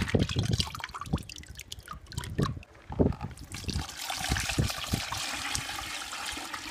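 Soaked maize kernels being drained. A hand sloshes and splashes them in the soaking water in a plastic bucket for the first few seconds, then from about four seconds in the water is poured off into another container in a steady trickling stream.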